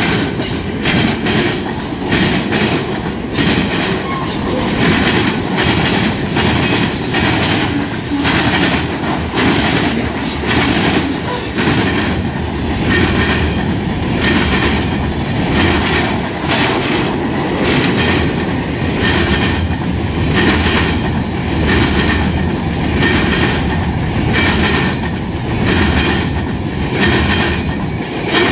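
Freight train's boxcars and gondola cars rolling past close by: a loud, steady rumble of steel wheels on rail with a regular clickety-clack as the wheels cross rail joints.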